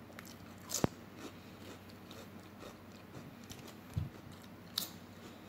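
Close-up eating sounds: biting and chewing a potato chip, with a sharp crunch a little under a second in and another near the end, a low thump at about four seconds, and small wet mouth clicks in between.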